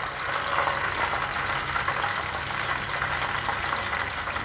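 Hot frying oil sizzling steadily in a pan, with a light crackle.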